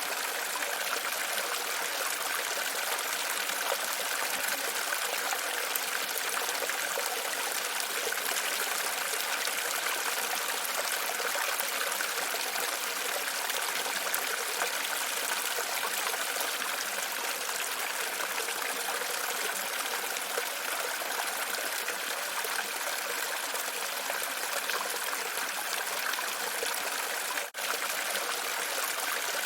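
Running water flowing steadily, an even rushing trickle, with a momentary break near the end.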